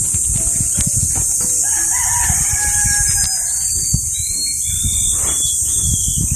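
A rooster crows once, beginning about a second and a half in and lasting about two seconds, over a steady high hiss; short high chirps follow in the second half.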